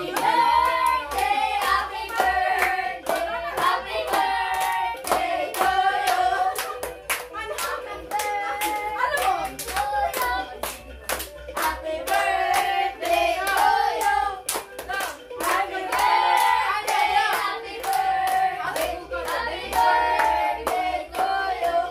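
A group of voices singing together while hands clap steadily in time, about two claps a second.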